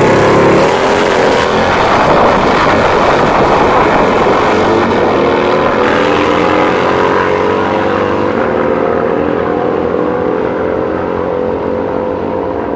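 Two drag-racing motorcycles launching from the start line and accelerating hard side by side down the strip, their engines loud at the launch and fading slowly as they pull away.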